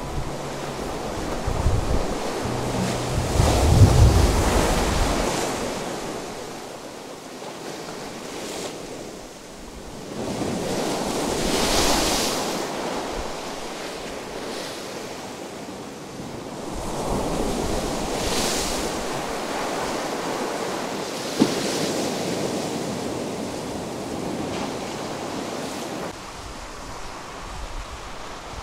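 Ocean surf breaking and washing up the sand between rocks. It comes in several rushing surges that swell and fade, the loudest about four seconds in. Wind buffets the microphone throughout.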